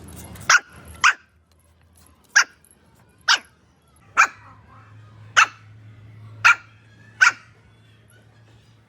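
A dog barking: eight single sharp barks, irregularly spaced about a second apart.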